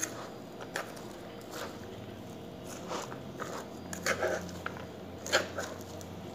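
Metal tongs tossing shredded chicken with chopped lettuce, grated carrot and celery in a large plastic bowl: soft crunchy rustling with a few light clicks, loudest about four and five seconds in, over a faint steady hum.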